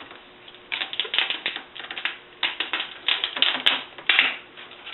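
Hands working the 40-pin display cable loose from the old laptop LCD panel: a busy run of small plastic-and-metal clicks, taps and scraping rustles, starting about a second in.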